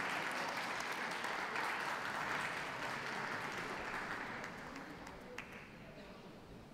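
Ringside audience applauding with steady clapping that fades away over the last two seconds.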